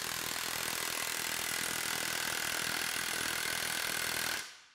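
Milwaukee 2867-20 1-inch cordless impact wrench hammering steadily as it tightens a bolt in a torque test rig, running flat out for its 5-second working torque test and stopping near the end.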